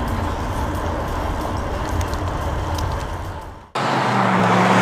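Steady road traffic noise with a deep rumble. It fades and cuts off abruptly about three and a half seconds in, and a brighter steady noise with a low hum takes over.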